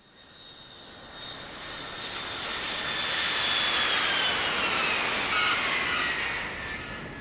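Intro sound effect of an 8D-processed hip-hop track: a rushing noise that swells over a few seconds and then eases off, with a high whine sliding slowly down in pitch, like an aircraft passing over.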